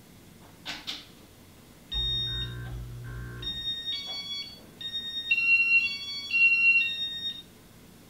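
Casablanca Ventura II Inteli•Touch ceiling fan's electronic control: two quick clicks, then a low hum with electronic tones, then a string of high electronic beeps at several pitches as the fan starts.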